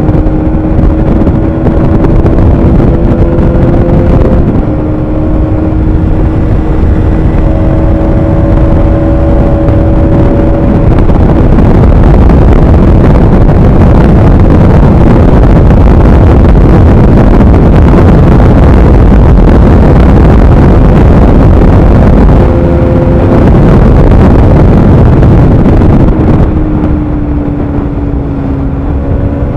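Bajaj Pulsar 200NS single-cylinder engine pulling steadily at cruising revs, recorded from the moving bike with heavy wind buffeting on the microphone. The wind drowns the engine for a long stretch midway, and near the end the engine note eases and falls as the throttle comes off.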